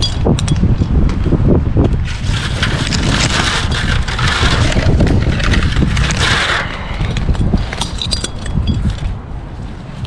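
Rumbling buffeting on the microphone, like wind noise, with a loud rustling hiss that starts about two seconds in and stops after about four and a half seconds.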